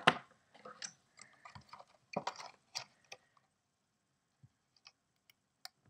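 Clear plastic packaging handled in the hands: a run of crackles and clicks for the first three seconds, then only a few faint isolated clicks.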